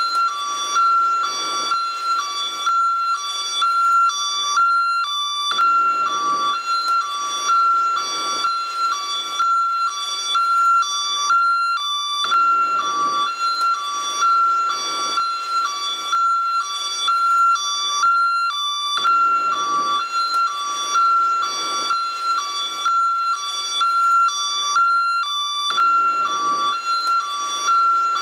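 American ambulance's two-tone hi-lo siren, switching steadily back and forth between a high tone and a low tone about twice a second.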